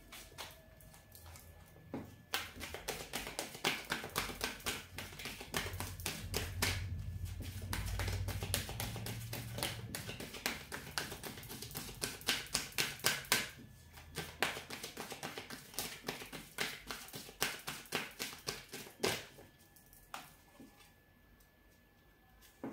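A deck of tarot cards being shuffled by hand: a fast, irregular run of soft card clicks and flicks. It starts about two seconds in and thins out near the end.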